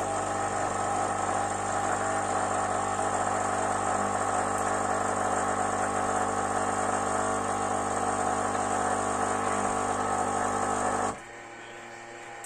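Krups EA81 espresso machine's pump running steadily with a hum as coffee is brewed into the cup. About eleven seconds in the pump stops and a much quieter hum carries on.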